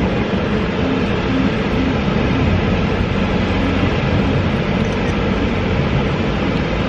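Motorboat under way: its engine running steadily under a loud, even rush of wind and water.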